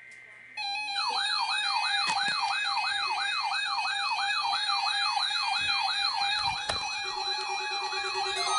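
Many NOAA weather radios alarming at once, set off by the weekly test's alert signal. After a faint steady tone, the alarms start together just over half a second in: a warbling siren-like sweep about three times a second over layered steady and pulsing electronic beeps. Another lower beeping tone joins near the end.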